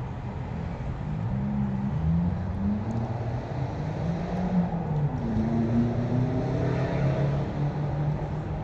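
Road traffic: car engines running and passing, their low pitch rising and falling.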